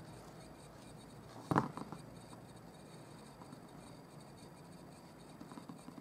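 Faint handling of a paper card and tweezers on a tabletop, small rubs and clicks as a thin paper piece is pressed into place, with one sharp knock about a second and a half in.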